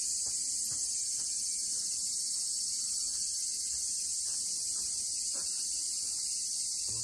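A dense, steady, high-pitched chorus of insects, shrill and without pause.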